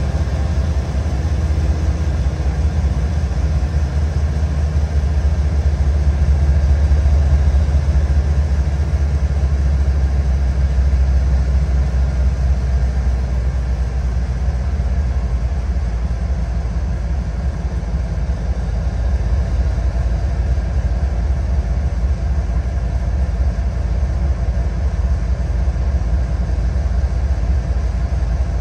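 CN Railway freight train running with a loud, steady low rumble, swelling slightly a few seconds in.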